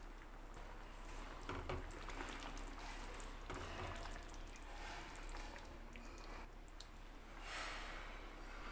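Faint wet cooking sounds of a curry being worked in a pot: soft squelching with small scattered clicks, and a brief swell of noise a little after seven seconds.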